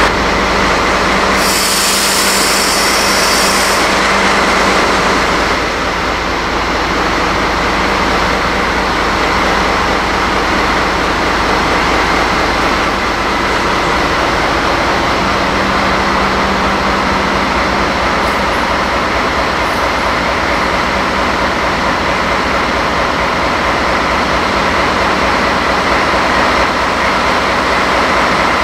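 DD16 diesel-hydraulic locomotive running light at walking pace, its diesel engine running steadily with wheel noise on the rails. A brief high hiss comes about two seconds in.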